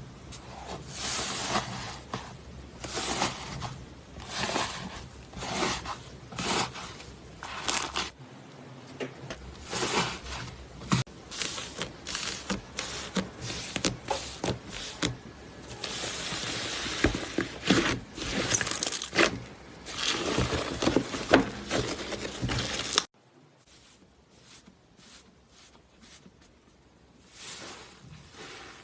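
Slime being squeezed and pressed by hand, making dense crackling and popping sounds. About 23 seconds in, it suddenly drops to much quieter, sparser crackles.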